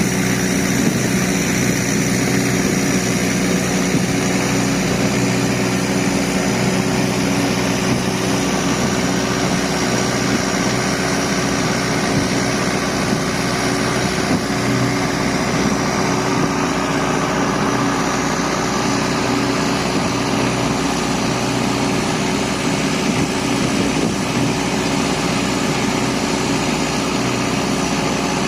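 Fishing boat's engine running steadily at an even speed, a constant drone with no change in pitch.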